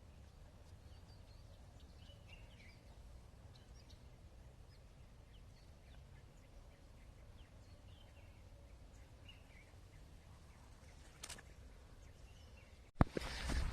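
Faint outdoor ambience: scattered short bird chirps over a low steady rumble. About 13 seconds in the sound drops out for an instant and a much louder, noisy sound starts abruptly.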